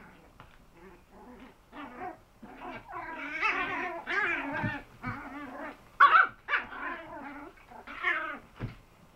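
Puppies play-fighting, with high-pitched growls and yips coming in quick short bursts that build from about two seconds in, and a sharp loud yip about six seconds in.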